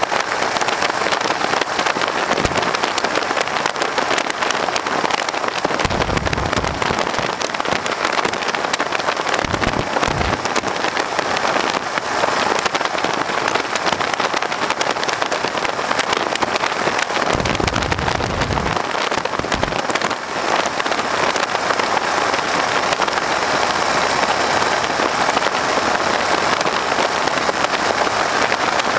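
Steady rush of wind and engine noise in the open cockpit of a PT-13 Stearman biplane with its Lycoming R-680 radial engine running. Deeper gusts of wind buffet the microphone a few times.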